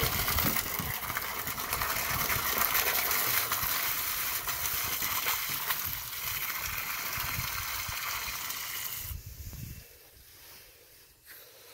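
Water jet from a 3/4-inch steel pipe, driven by an irrigation pump, blasting into the lake bed at the foot of a dock piling and churning and splashing up through the surface. The rushing drops off suddenly about nine seconds in.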